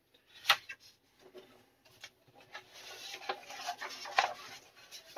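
Large sheets of paper being handled: a sharp knock about half a second in, then rustling and crinkling as the plans are moved aside and an instruction booklet is opened.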